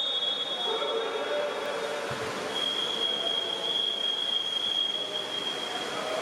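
Referee's whistle: one blast ends just after the start, then a long, steady, high blast begins about two and a half seconds in and is held for over three seconds, over the echoing noise of a pool hall.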